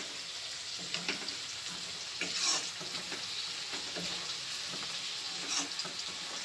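Potatoes and onions frying in oil in a metal wok (kadhai), a steady sizzle, with a metal spoon scraping and clinking against the pan a few times as they are stirred.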